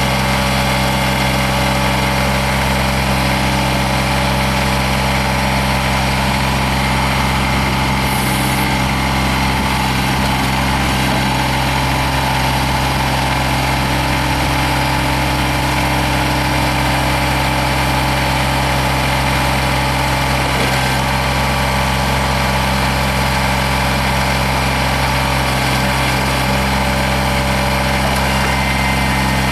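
Kubota BX22 sub-compact tractor's small diesel engine idling steadily, with no revving.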